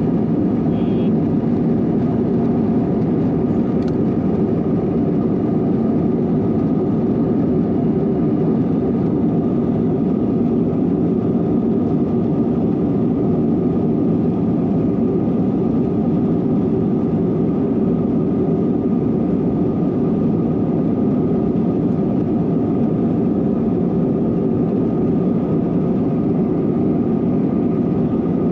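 Steady jet engine and airflow noise inside the cabin of an Airbus A321, a loud even rumble with a faint held hum.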